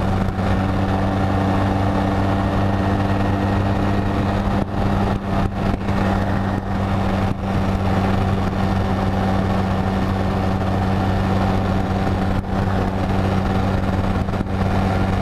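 2005 Honda Rebel 250's small parallel-twin engine running at a steady cruising speed, its note holding one pitch, with wind noise rushing over it.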